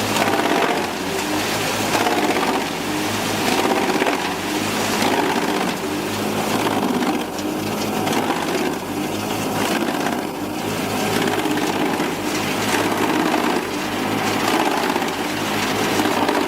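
A heavy forestry machine's engine running under load while wood is crushed and splintered, the loudness swelling and easing throughout.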